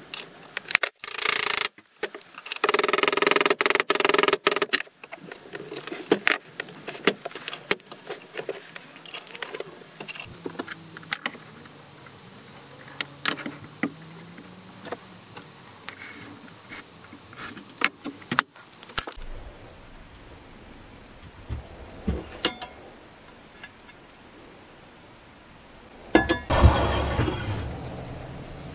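Metal and wooden parts being handled on a wooden workbench: a run of clinks, taps and knocks of a steel billhook blade, tools and small wooden handle pieces, with a few louder passages of rubbing or scraping, the loudest near the start and near the end.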